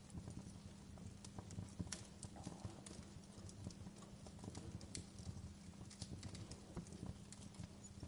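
Wood fire burning down to glowing embers, with frequent irregular crackles and sharp pops over a soft low rumble.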